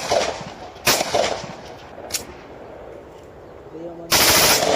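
Pistol test-fire: a single shot about a second in, a sharp smaller crack a little after two seconds, then a longer, louder blast of gunfire near the end.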